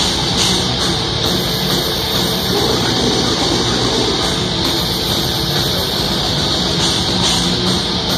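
Death metal band playing live at full volume: distorted electric guitars, bass and drum kit, recorded from within the audience.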